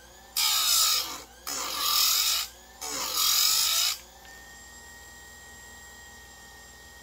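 Electric chainsaw chain grinder's abrasive wheel grinding the cutters of a new saw chain: three grinding passes of about a second each. After that the head is lifted and the motor runs free with a steady high whine.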